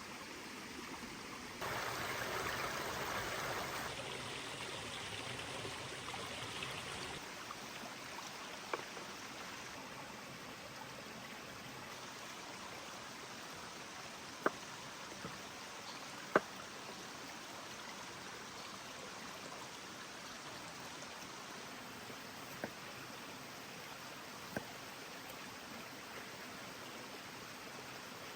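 Wood fire burning with a steady hiss and a few sharp crackling pops, the loudest about two-thirds of the way through.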